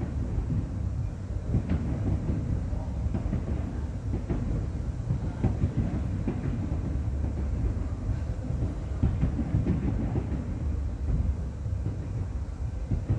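Distant fireworks exploding: a continuous low rumble of overlapping booms with many sharp cracks scattered through it.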